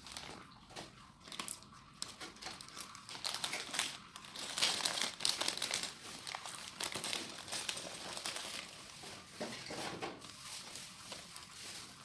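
Crinkling of a plastic bag of Lego bricks being handled, a dense patter of small crackles and clicks that gets louder from about four seconds in.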